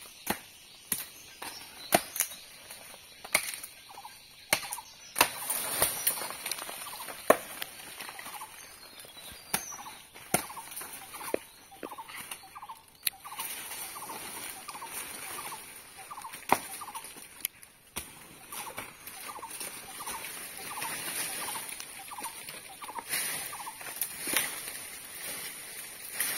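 Machete chopping at a dead tree branch for firewood: sharp, irregular wooden chops, heaviest in the first half. The dead branch is then pulled down and dragged rustling through leafy undergrowth.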